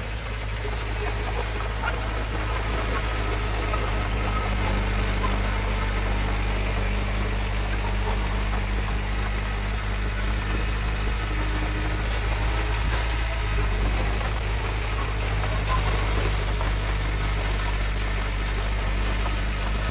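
Diesel engine of heavy earthmoving machinery running steadily with a deep, even hum.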